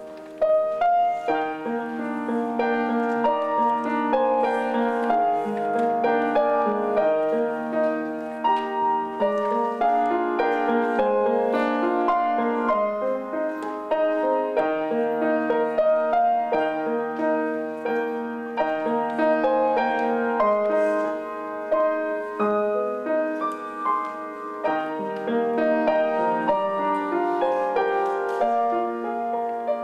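Piano playing slow, chordal music with held notes, swelling louder about half a second in.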